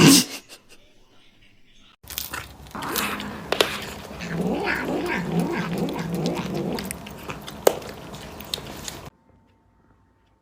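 A domestic cat caterwauling in a low, wavering yowl, with a few sharp knocks among it. It cuts off suddenly near the end.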